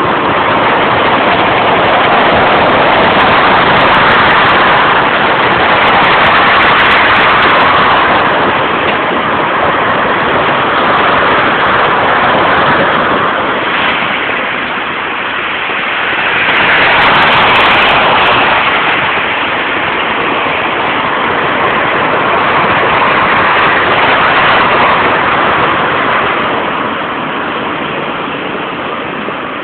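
Steady road-traffic noise that swells and eases every few seconds.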